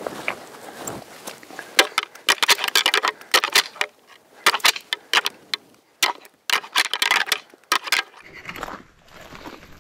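Deer antlers rattled together in three spells of sharp clattering clicks, the way a hunter imitates two whitetail bucks sparring to call in a buck during the rut.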